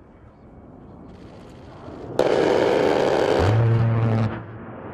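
A-10 Thunderbolt II's 30 mm GAU-8 Avenger rotary cannon firing a burst. A sudden loud ripping roar starts about two seconds in and turns into a deep, fast buzzing drone, then cuts off abruptly about two seconds later.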